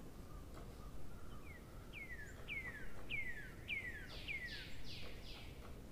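A bird singing, a quick run of about seven falling notes from about a second in, then a few harsher, broader notes near the end. A clock ticks faintly about twice a second underneath.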